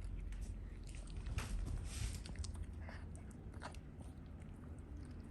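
A dog chewing and crunching on a hard treat, with irregular crisp crunches that are busiest about a second and a half in.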